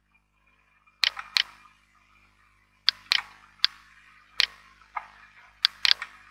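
About a dozen sharp clicks and taps, some in quick pairs, spaced irregularly, starting about a second in.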